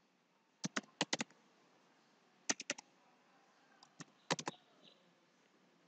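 Computer keyboard typing: three short bursts of clicking keystrokes with pauses between them.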